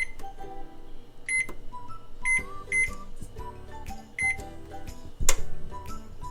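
Upbeat background music with short, high repeated notes over a melody, and one sharp knock about five seconds in.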